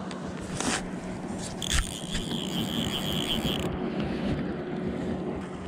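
Fly reel's ratcheting drag clicking while a hooked salmon is played on the line, with a steady high tone for about two seconds midway.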